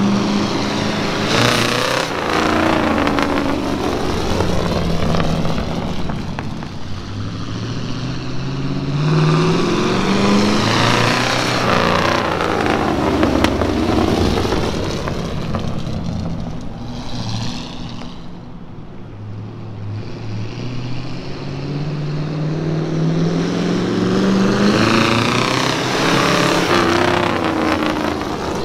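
1958 Chevrolet Viking 60 tow truck's engine pulling the truck along, its pitch rising in several sweeps as it accelerates and dropping back between them at each shift or lift, getting louder as the truck comes close and fading as it moves away.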